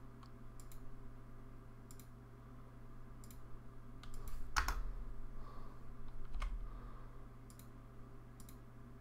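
Computer mouse clicking at irregular intervals, about once a second, as cut points are placed one by one with a 3D program's knife tool. The loudest is a sharper knock with a low thud about four and a half seconds in. A steady low electrical hum runs underneath.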